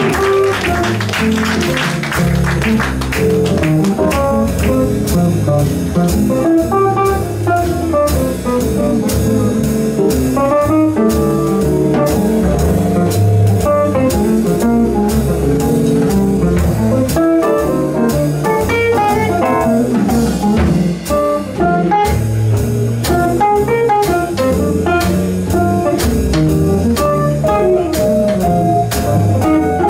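Small jazz group playing a swing blues: an archtop guitar plays a solo of single-note lines over piano chords, a walking upright bass and drums with a steady ride cymbal, with trumpet and saxophone resting.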